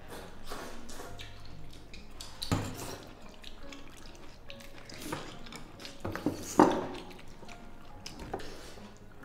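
Metal ladle scooping duck and sweet potato soup in a stainless steel basin: liquid splashing and dripping, with sharp clinks of metal on metal, the loudest about six and a half seconds in.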